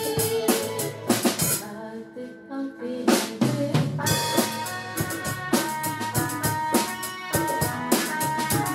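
Instrumental music with a drum-kit beat and held instrument tones; it thins out briefly about two seconds in, then the full beat comes back.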